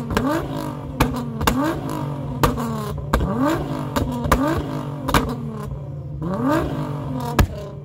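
Nissan GT-R R35's twin-turbo V6, tuned and running a straight-through exhaust, blipped over and over from idle: a string of short rising revs, about one a second, each falling away with sharp cracks and pops from the exhaust as it spits flames on the overrun. The loudest crack comes near the end.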